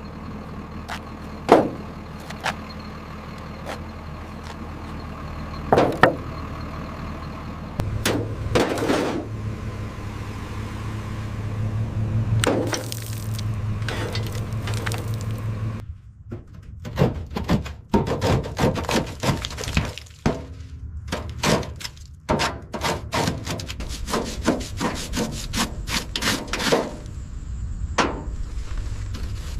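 Restoration workshop noise: a low hum with scattered sharp knocks, then, about halfway through, a long run of quick, repeated scraping or rubbing strokes.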